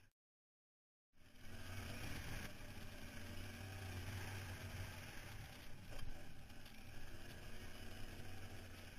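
ATV engine running steadily while riding a dirt trail. The sound cuts out completely for about a second right at the start.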